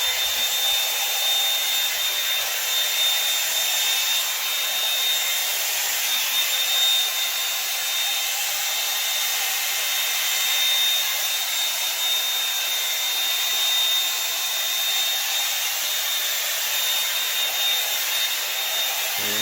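Hot Tools 24K Gold One-Step hair dryer brush running steadily: a rush of blown air with a steady high whine from its motor.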